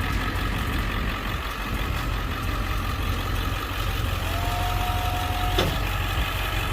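Truck engine idling steadily, with a brief steady whine about four seconds in.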